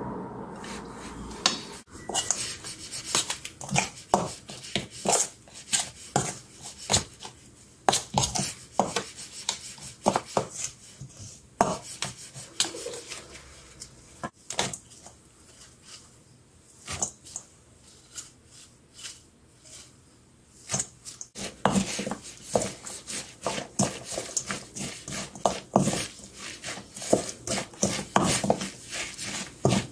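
A metal spoon scraping and clinking against a stainless steel bowl as it stirs thick red chili-paste seasoning, in irregular strokes. About two-thirds of the way through the strokes come thicker and faster as a wooden spoon tosses chopped chives and onion through the seasoning.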